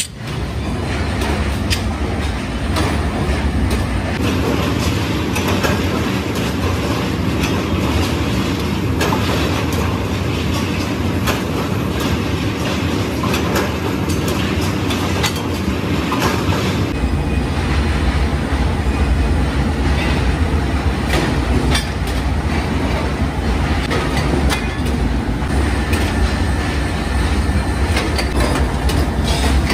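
Forging-shop noise: flywheel-driven mechanical power presses running, with many sharp metal clanks over a steady low rumble. The mix shifts abruptly about four and again about seventeen seconds in.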